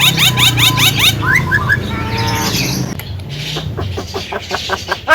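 Javan myna singing a varied song. It opens with rapid rising whistled notes, about five a second, breaks into a jumble of mixed calls, and ends with a run of quick clicks.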